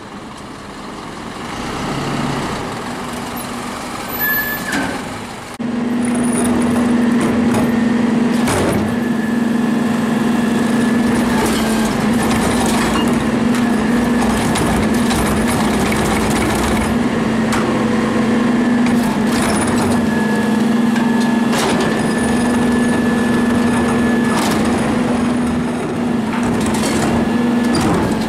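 New Way Diamondback rear-loader garbage truck on an Isuzu chassis pulling up. About five and a half seconds in, its hydraulics engage and the engine runs with a steady hum. The cart tipper empties recycling carts into the hopper with several sharp bangs of cart and contents.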